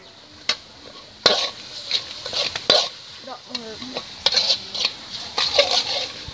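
Stainless-steel ladle scraping and clanking against a thin aluminium wok as chopped meat is stir-fried in oil, with sizzling underneath. The clanks come irregularly, a few each second.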